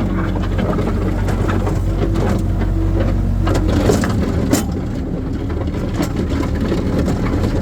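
Skid steer engine running steadily while its bucket scrapes and crunches over hard, rocky ground and gravel, with sharp knocks of stone and metal. The engine hum drops about four seconds in.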